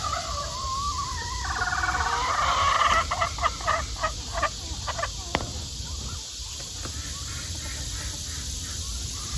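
Chickens calling in a pen: a drawn-out, wavering call during the first few seconds, then a quick run of short clucks.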